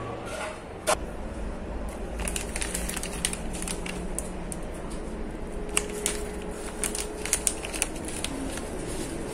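Scattered light clicks and ticks over a steady low hum, thickest through the middle.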